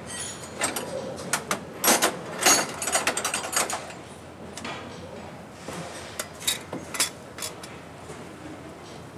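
Metal hand tools clinking and knocking against a truck's underside as a mechanic works on bolts beneath it, with some ratchet-like clicking. A dense run of sharp clanks over the first few seconds, then a few separate knocks later.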